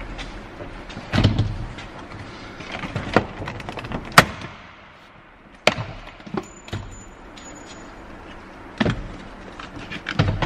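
Scattered sharp clicks and knocks of plastic trim being pried and handled while a car door's speaker cover is taken off.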